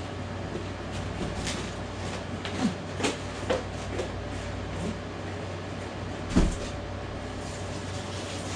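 Household knocks and clicks off across the room as a box is put away: scattered taps, with one louder thump about six and a half seconds in, over a steady low hum.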